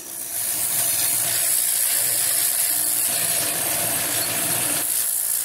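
Pressure washer spraying: a loud, steady hiss of the water jet that starts suddenly, over the hum of the running machine.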